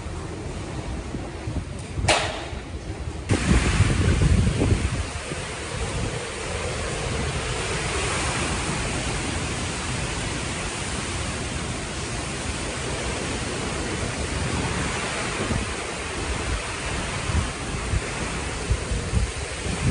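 Typhoon wind blowing hard, a steady rush with wind buffeting the microphone. It gets suddenly louder about three seconds in, with heavy gusting rumble, then settles into an even roar.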